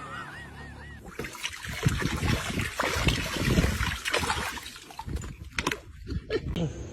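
Water splashing in irregular bursts, starting about a second in and dying down after about four seconds, followed by a few sharp knocks.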